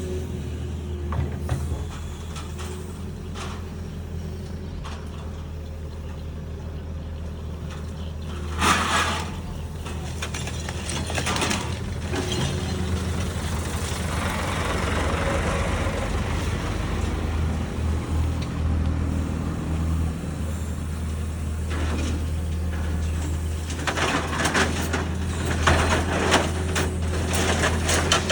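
Excavator's diesel engine running steadily while it handles steel, with sharp metal clanks and rattles of the steel about nine seconds in, again a little later, and in a cluster near the end.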